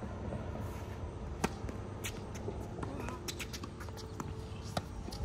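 Tennis ball struck by racket strings and bouncing on a hard court during a point: a string of sharp pops, the loudest about a second and a half in, with a cluster around three seconds in.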